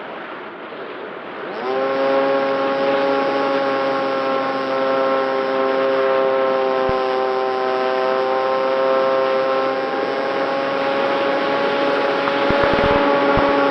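Electric motor and propeller of a small foam flying-wing RC plane spinning up about two seconds in, then holding a steady, nearly constant-pitch whine over a rush of wind. A few faint low knocks come near the end.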